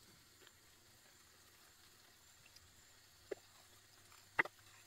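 Near silence: a faint steady hiss, with two soft clicks about a second apart in the second half.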